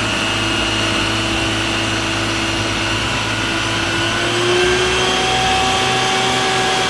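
Isuzu water tanker truck's engine running steadily, driving the pump for its roof-mounted water cannon, with the hiss of the water jet. A whine runs through it and climbs a little about four seconds in.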